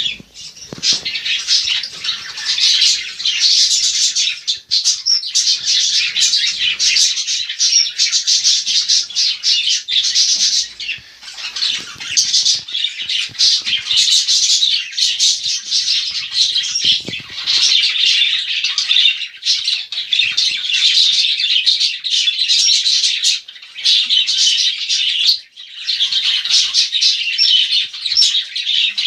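Cockatiel and other small pet parrots chattering and squawking without letup, with brief pauses about five, eleven and twenty-five seconds in.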